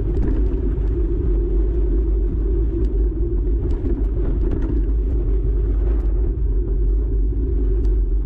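Steady rumble of a mountain bike's tyres on a gravel track, with the vibration carried through the handlebars into a bar-mounted camera, and scattered small ticks from loose stones and rattling parts.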